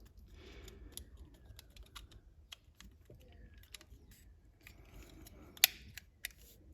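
Hard plastic model-kit parts clicking and tapping as they are handled and test-fitted together, in small irregular clicks with one sharper, louder click a little over halfway through.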